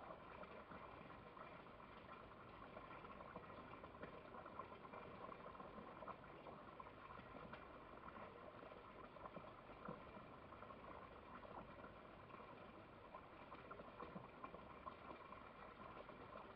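Near silence: a faint, steady crackling background noise with no distinct events.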